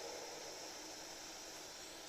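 Steady faint hiss of a bedroom sleep recording in the quiet pause between snores.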